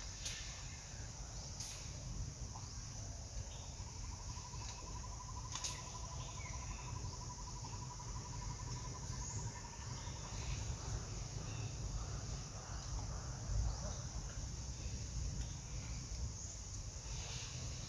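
Forest ambience: a steady high insect drone over a low rumble. An even, pulsing trill starts about four seconds in and stops near ten seconds.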